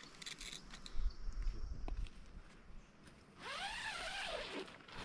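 Rustling and knocks of a small camping tent being handled and set down on a rock, then a dog's whine that rises and falls in pitch, about a second long, starting about three and a half seconds in.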